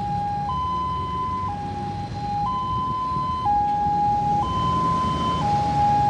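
Ambulance siren sounding a two-tone hi-lo pattern, switching between a low and a higher tone about once a second, over a low rumble.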